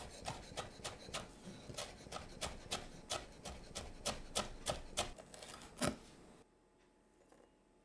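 Chef's knife chopping a red chili on a wooden cutting board: even knocks of the blade on the board, about three a second, with a louder knock just before the chopping stops about six seconds in, leaving near silence.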